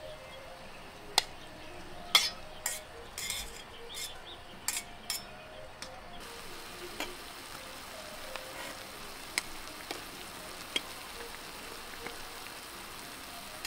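Chopsticks and a steel bowl clinking against a small camping pot as sliced meat is tipped into simmering noodle broth and stirred, with a run of sharp clicks in the first half. After about six seconds, only a few fainter ticks over a steady simmering hiss.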